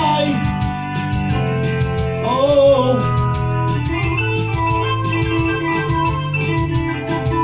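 Electronic keyboard playing held organ-style chords over a steady backing beat, with a short wavering, bending lead note about two and a half seconds in.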